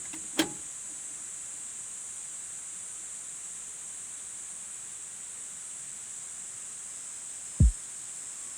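A steady, high-pitched drone of insects (grass insects such as crickets) trilling without a break. There is a single click just under half a second in, and a deep thump falling in pitch near the end.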